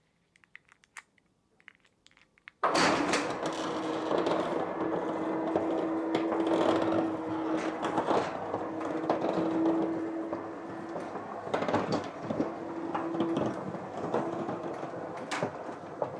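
Roller shutter garage door being operated: after a few faint clicks, a steady mechanical running noise with a steady hum and scattered clicks starts suddenly about three seconds in and keeps going.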